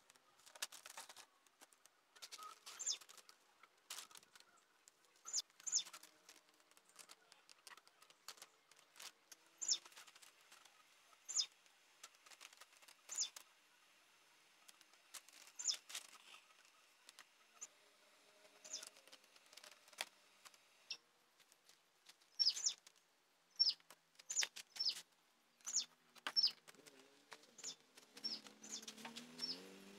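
Small birds chirping: short, high notes that drop in pitch, scattered through and coming in quicker runs in the last third. Between them come scattered crackles of newspaper and masking tape being handled.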